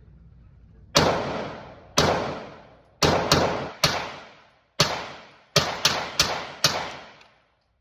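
Glock 43X 9mm pistol firing about ten shots at an uneven pace, some in quick pairs, each crack followed by a long echoing tail.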